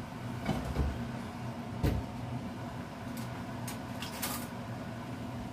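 A few light knocks and clicks of things being handled in a kitchen, with a sharper knock about two seconds in, over a steady low hum.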